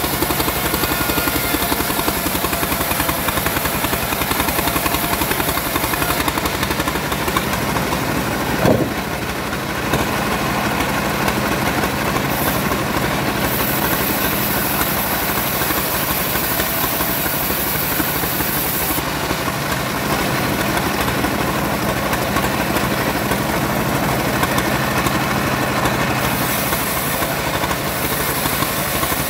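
Homemade bandsaw running steadily and sawing sengon wood, a dense continuous machine noise. A single sharp knock comes about nine seconds in, followed by a brief dip in level.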